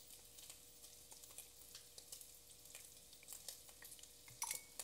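Bacon frying in a pan: faint crackling and spitting pops, with one brief clink about four and a half seconds in.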